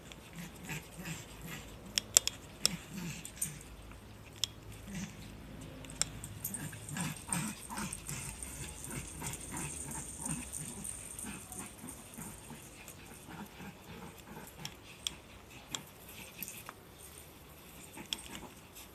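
Small leashed dog moving about on a concrete walkway, with scattered sharp clicks and soft, irregular low snuffling noises, mostly in the middle.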